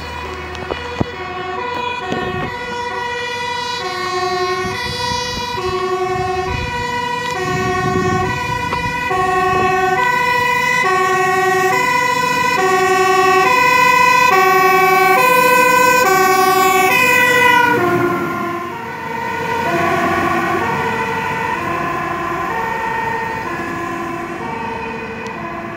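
Emergency vehicle's two-tone siren alternating high and low notes, growing louder as it approaches. About two-thirds of the way through, both notes drop in pitch as it passes, and the siren then fades as it drives away.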